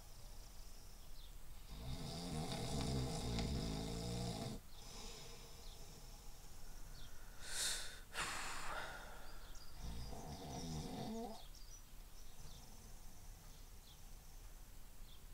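A man snoring: a long rattling snore about two seconds in and another about ten seconds in, with a short hissing breath between them.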